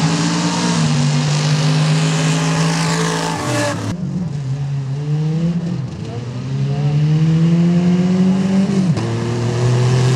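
Off-road trucks drag racing side by side on a sand and dirt strip: big engines at full throttle over a hiss of spinning tyres throwing dirt. About four seconds in the sound cuts to a second pair launching, the engine pitch climbing steadily, then dropping suddenly at a gear shift near the end.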